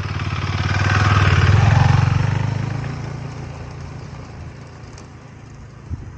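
Husqvarna Svartpilen 401 single-cylinder motorcycle engine pulling away close past the microphone, then fading as it rides off into the distance. It is loudest about a second and a half in.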